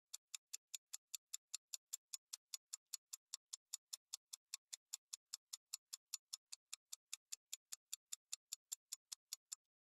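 Countdown timer sound effect ticking: a steady run of sharp clicks, about five a second, marking the time allowed to answer a quiz question. It stops shortly before the end.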